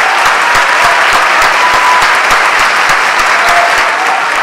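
Audience applauding: dense, steady clapping from many hands at the close of a performance.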